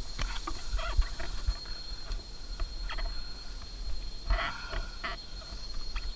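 Rustling leaves, scrapes and knocks as an off-road dirt bike goes over onto its side in roadside bushes, with the rider's short grunts or breaths. The loudest knock comes about a second in and another cluster near the end, over a thin steady high-pitched tone.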